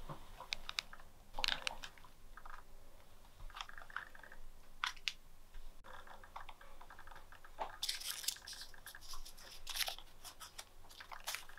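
Irregular plastic clicks and handling of a remote control as its battery compartment is opened, then a crumpled paper note crinkling as it is pulled out and unfolded, with denser crackling in the last few seconds.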